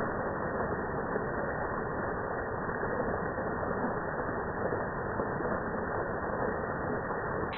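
Steady rush of a mountain waterfall, sounding dull and muffled with its high end cut away.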